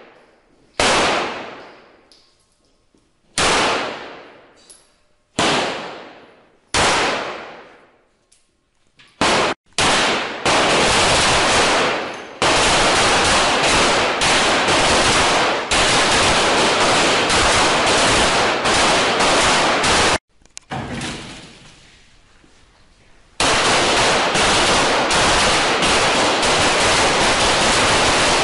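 9mm pistol gunfire on a covered range. First come single shots a couple of seconds apart, each followed by a long echo. From about ten seconds in the shooting turns rapid and continuous, with several pistols firing at once. It breaks off for a few seconds past the twenty-second mark, then resumes.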